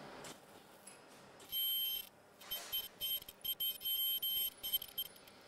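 Ultrasonic sewing (welding) machine sealing nonwoven gown fabric, giving a high-pitched whine. The whine comes in about a second and a half in and cuts in and out in short bursts for the next three seconds.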